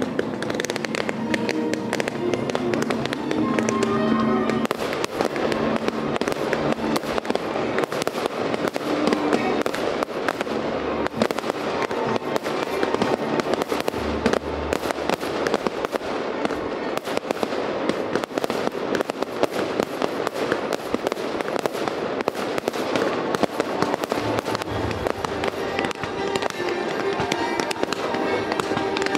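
Fireworks display: a dense, unbroken crackle of bursting stars, comets and fountains, with a few heavier low thumps of shells bursting about midway. Show music plays beneath the fireworks.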